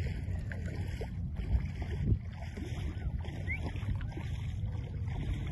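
Steady low rumble of wind and shallow seawater lapping around the shore flats.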